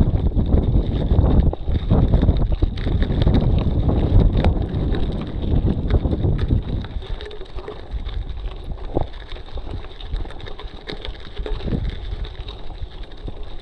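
Wind buffeting the camera microphone on a mountain bike climbing slowly, heavy for about the first seven seconds and then easing. Under it, knobby tyres roll on loose gravel, with small clicks and rattles from stones and the bike.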